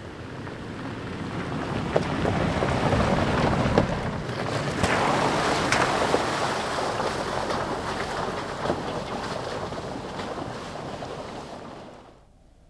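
A vehicle driving along a dirt road: a rushing tyre and wind noise that swells, then fades, with scattered small clicks, before cutting off suddenly near the end.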